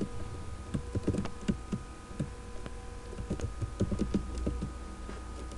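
Typing on a computer keyboard: quick, irregular keystrokes that thin out near the end, over a faint steady hum.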